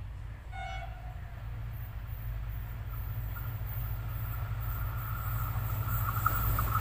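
Pakistan Railways HGMU-30R diesel-electric locomotive approaching with its train: a steady low rumble growing gradually louder, with a higher steady tone joining about two seconds in.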